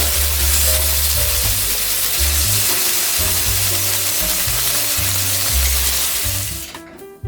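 A steady, loud hiss, like sizzling or heavy rain, over background music with a plodding bass line. The hiss cuts off suddenly near the end, leaving only the music.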